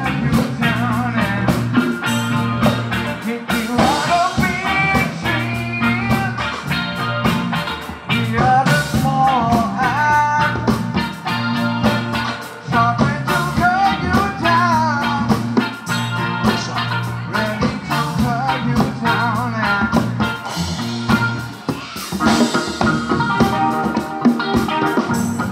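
Live rock band playing a song: drum kit, electric guitar and bass guitar, with a singer.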